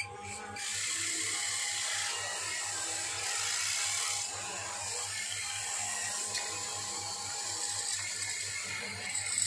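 Small electric motors and gearboxes of a radio-controlled toy excavator whirring as it raises and lowers its arm and bucket. The whir starts up about half a second in and changes in level as the arm moves.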